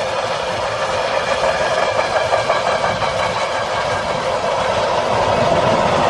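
A train running past, a loud steady rumble that grows slightly louder toward the end.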